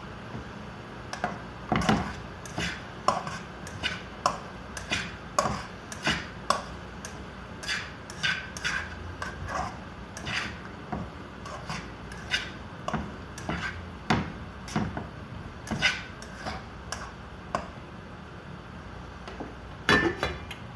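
A utensil clinking and knocking irregularly against a stainless steel pot as noodles are stirred, about one or two knocks a second. Near the end there is a louder metal clank as the pot lid is taken off.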